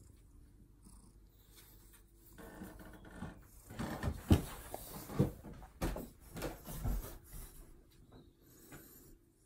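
Domestic cat nuzzling the phone up close: purring, with its head and fur brushing and bumping against the microphone in a run of irregular knocks and rustles, loudest in the middle.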